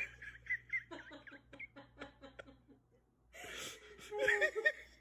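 A person laughing in short, breathy bursts with high-pitched squeaky giggles, growing louder after a brief pause near the end.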